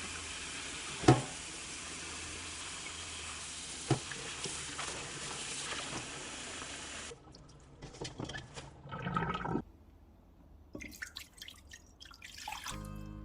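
Kitchen tap running into a sink, with two sharp knocks along the way; the water stops about seven seconds in, followed by scattered short clatters and rustles of handling.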